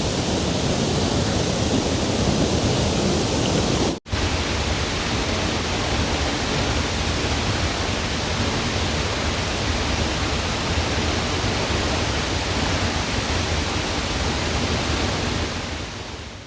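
Pulhapanzak waterfall: a steady, dense rush of falling water. It cuts out for an instant about four seconds in and fades out at the very end.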